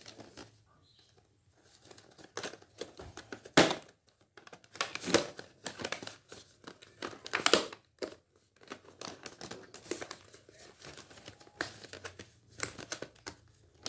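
Small cardboard microphone box being handled and pried open by hand: irregular crinkling and scraping of card and packaging, in short rustles with the sharpest about three and a half seconds in. The box is hard to open.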